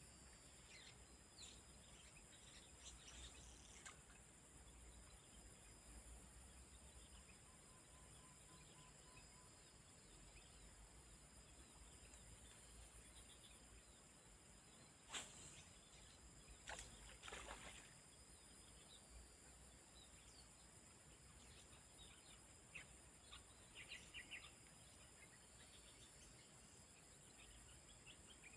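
Faint outdoor ambience: a steady high insect drone with scattered short bird chirps. A sharp click comes about halfway through, followed a little later by a brief rustling clatter.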